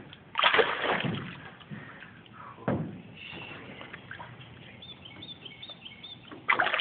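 Water splashing and sloshing as a large carp, about 30 lb, is held by the mouth at the side of a small boat. The loudest splash comes about half a second in, a sharper one near three seconds in, and another near the end.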